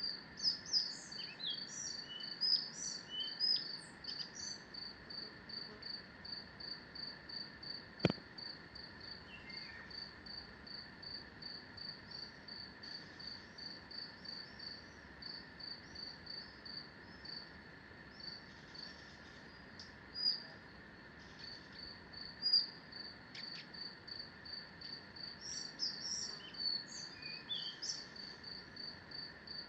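Forest ambience: a high insect chirp repeating steadily about three times a second over a steady hum of more insects, with bursts of bird song near the start and again near the end. A single sharp click about eight seconds in.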